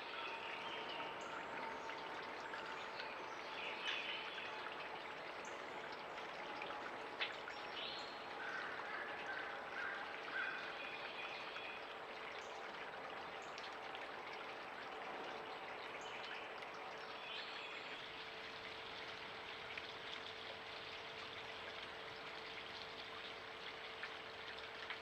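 Mountain creek water flowing steadily, with a faint steady hum beneath it and a few short higher-pitched sounds over it.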